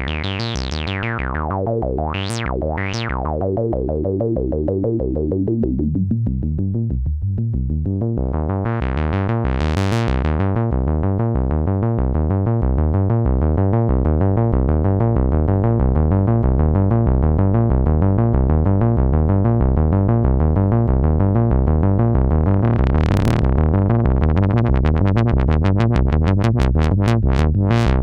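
Behringer MS-1 analog monophonic synthesizer, a clone of the Roland SH-101, playing a fast repeating pattern of bass notes with no effects. Its resonant filter sweeps up and down several times, and the sound grows brighter and fuller toward the end.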